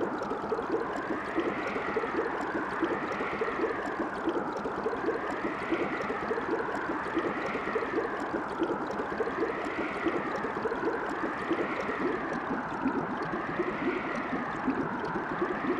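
Tropical island water ambience from a sound-effect track: steady stream-like gurgling and hiss. A swishing rise and fall repeats evenly about every two seconds, as in a processed, converted recording.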